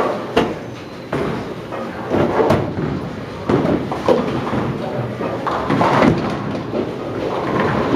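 Tenpin bowling alley noise: a steady rumble with a run of sharp knocks and clatters of balls and pins, the loudest about six seconds in, over murmured voices.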